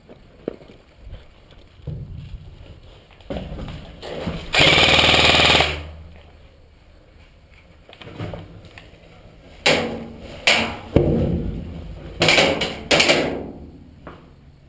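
Airsoft electric gun firing a full-auto burst of about a second, followed a few seconds later by several shorter bursts.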